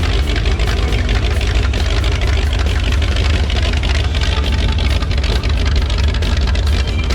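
Car engine idling steadily, deep and loud, with a fast even pulse.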